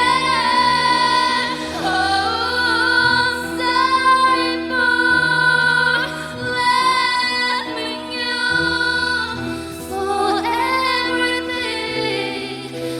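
A woman singing a slow melody over backing music, holding long notes with vibrato.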